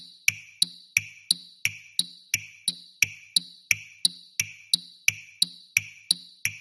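Japanese railway level-crossing warning bell ringing its "kan-kan" alarm, about three even strikes a second.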